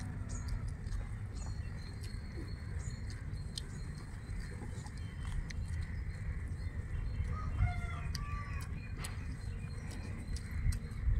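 Chicken clucking, a few short calls about seven to eight seconds in, over a steady low rumble and small clicks from eating by hand.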